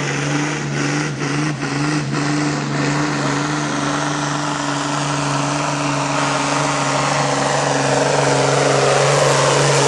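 Truck's diesel engine running hard at steady, high revs as it pulls a weighted sled down the track, under a dense hiss of noise.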